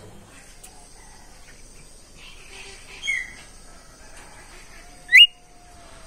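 Caged bimoli songbird calling twice: a short chirp about three seconds in, then a louder, quick whistle that sweeps sharply upward about five seconds in.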